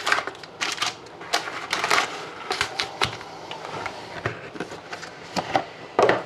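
Hockey card packs being handled, their wrappers crinkling with irregular clicks and taps, loudest about six seconds in.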